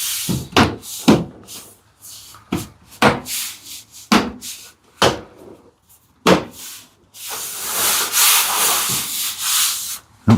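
Plastic door-panel clips being pushed and knocked back into the steel door of a Mitsubishi U62T mini truck: about a dozen sharp knocks and snaps at an irregular pace, then a rough rubbing of the trim panel against the door for about three seconds near the end.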